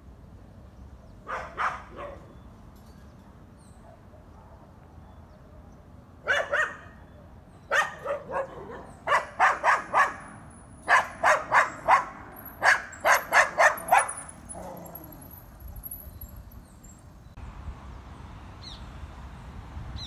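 A dog barking: two or three barks, then a long run of rapid barks, about three a second, that stops a few seconds before the end.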